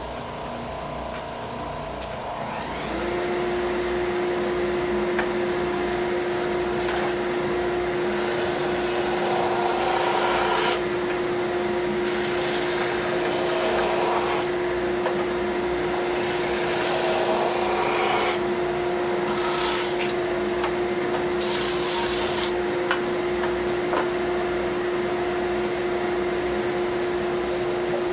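Electric sander running, its steady motor hum settling about three seconds in, with several stretches of brighter hissing as the wood of a bandsaw-box drawer is pressed to the abrasive to take a little more off so it fits.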